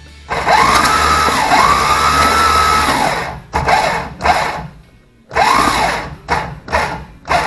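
Starter motor cranking a Chrysler 440 big-block V8 with its spark plugs out, so the engine spins over freely without compression. The starter's whine rises as it spins up and then holds, first for about three seconds, then in a string of short bursts.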